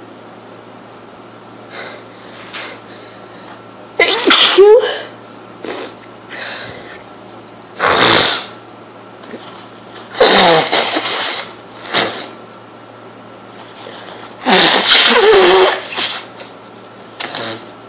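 A person having a sneezing fit from a cold: four loud sneezes a few seconds apart, with shorter, quieter bursts between them.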